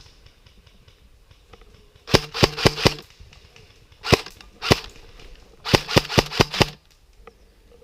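Electric airsoft HK416 replica firing: a rapid burst of about five shots about two seconds in, two single shots, then a burst of about six, with the gearbox whirring under each burst.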